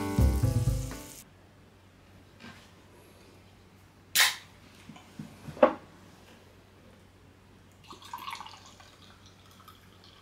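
Background piano music that ends about a second in. Then two sharp clicks about a second and a half apart, and near the end a short fizzing pour of a canned carbonated wine sour into a glass.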